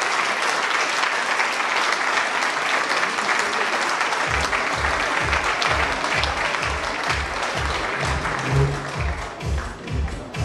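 Audience applauding; about four seconds in, music with a steady low beat starts up under the applause, and the clapping thins out near the end.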